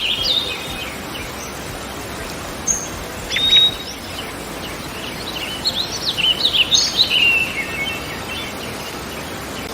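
Small songbirds chirping and twittering in short quick high phrases over steady outdoor background noise. The calls come in clusters, thickest in the second half.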